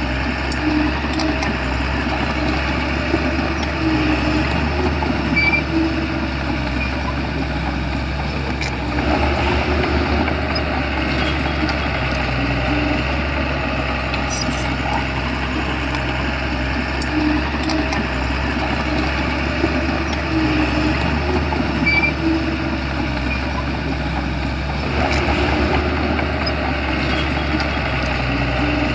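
Shantui bulldozer's diesel engine running steadily, with a few brief clicks.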